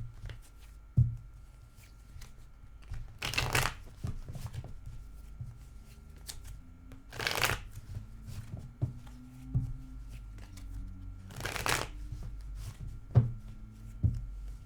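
Tarot cards being shuffled in three short bursts, with a few soft knocks of the deck or hands on the table between them.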